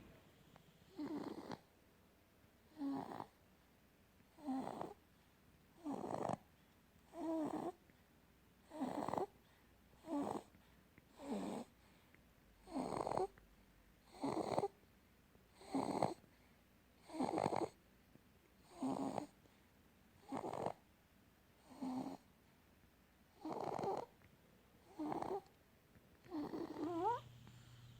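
A sleeping baby snoring: a short snore on each breath, about one every second and a half, steady and even.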